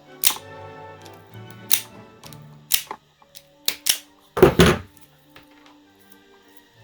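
Background music with a series of sharp clicks and knocks from handling the mouse's cable and tools. A louder double knock comes about two-thirds of the way through.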